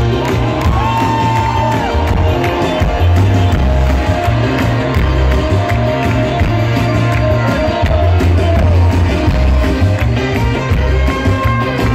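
Live rock band playing loud through a concert PA: electric guitar with bending notes over bass and drums.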